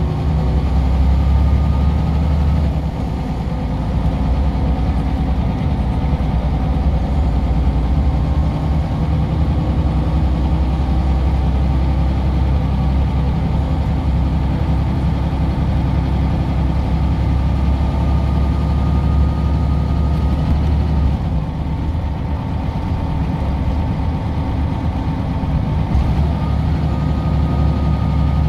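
Scania CL94UB city bus's Scania DC9 five-cylinder diesel engine running, heard from inside the passenger cabin: a deep, steady drone with a faint thin whine above it. The engine note drops about three seconds in and again a little past twenty seconds.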